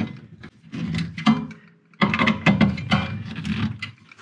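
A Picquic multi-bit screwdriver with a hex bit turning bolts into nutcerts (rivet nuts) to fasten a metal battery tray. It makes irregular scraping, clicking and rubbing as the driver turns and the hand works the tray, with a short lull just before halfway.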